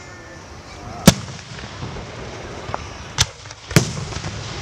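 Aerial fireworks shells bursting: three sharp bangs, the loudest about a second in, then two more close together a couple of seconds later.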